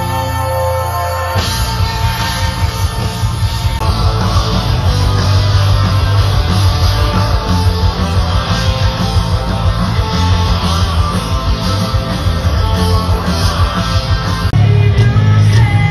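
Rock band playing live at full volume: electric guitar, bass and drums. A held chord gives way abruptly about a second in to the full band driving a steady beat, which thickens with more guitar about four seconds in.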